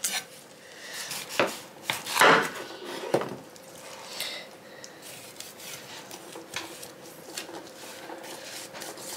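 Kitchen knife cutting and scraping through the flesh of a partly thawed frozen jackfruit on a wooden cutting board, as gloved hands pull the fruit apart. It gives a run of knocks and scrapes, the loudest about two and three seconds in, then lighter ticks.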